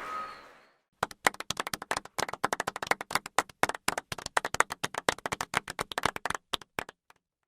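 Crowd applause dies away, then hand clapping starts about a second in as many distinct, sharp claps, several a second, which thin out and stop near the end.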